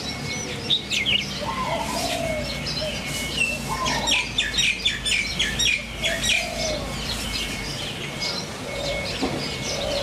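Several birds calling: chirps throughout, with a quick run of about eight sharp chirps between four and six seconds in, and low, short dove-like coos underneath.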